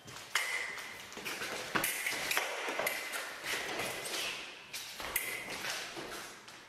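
Foil blades clashing with short metallic pings, mixed with the taps and shuffles of fencers' footwork on a metal piste: many quick sharp clicks.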